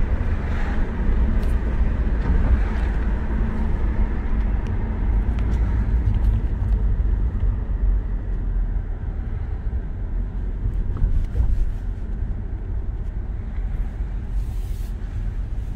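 Inside the cabin of a 2016 Lexus RC300 on the move: a steady low rumble of engine and road noise, easing a little about halfway through.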